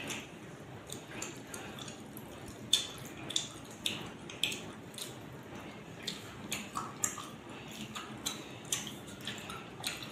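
Eating by hand: fingers squishing and mixing parotta soaked in chicken gravy on a steel plate, with chewing. A scatter of short wet clicks and smacks, the sharpest about three seconds in.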